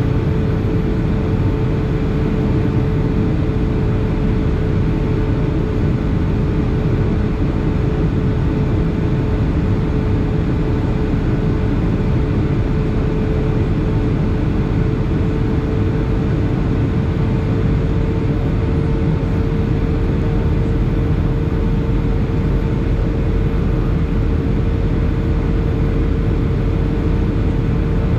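Steady cabin noise inside a Boeing 757 in flight: the drone of its engines and rushing airflow, with a steady hum running through it.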